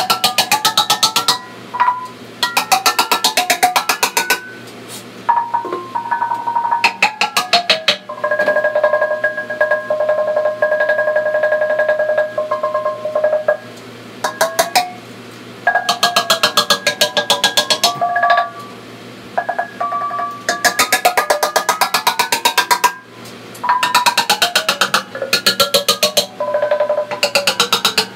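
Rapid runs of small-hammer blows on a steel handpan note during tuning, the struck steel ringing with pitches that slide up and down as it is hammered. About eight seconds in the hammering eases and a note rings steadily with its overtones for several seconds before the rapid blows resume.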